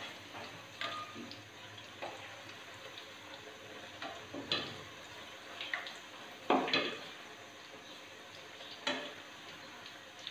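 Besan-coated brinjal slices deep-frying in hot oil over medium heat, a steady sizzle, with a metal slotted skimmer scraping and knocking against the pan several times as the slices are turned; the loudest knock comes about two-thirds of the way through.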